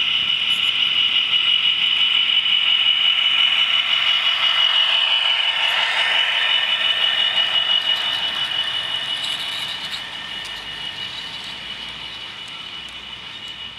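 OO gauge model freight train with a Class 66 locomotive running past on the rails: a rushing wheel-on-rail clatter over a steady high whine. The noise swells as the wagons pass and fades after about eight seconds as the train moves away.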